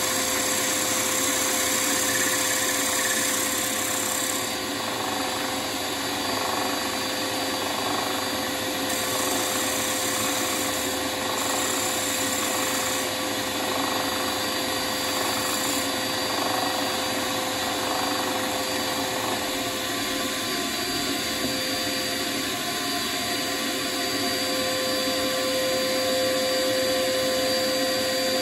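Wood lathe running with a steady motor hum as a wooden bowl is turned, with a high hiss from the work on the spinning wood coming and going every few seconds.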